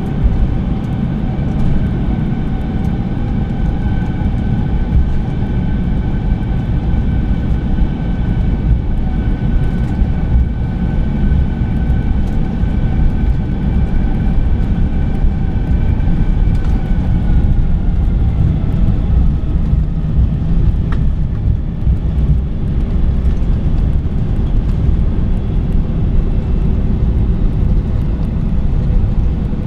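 Airbus A321-200 cabin noise while taxiing in after landing: a steady low rumble with the jet engines' whining tones over it. The tones dip slightly in pitch a little past halfway, and a lower tone comes in near the end.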